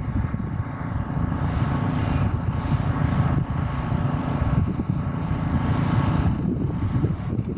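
Wind rumbling on the microphone over the steady whine of jet aircraft engines.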